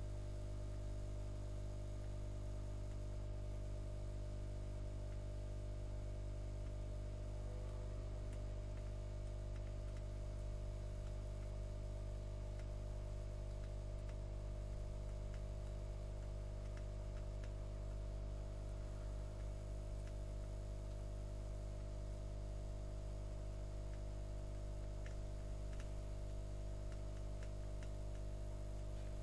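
Steady low electrical hum that does not change, with a few faint ticks.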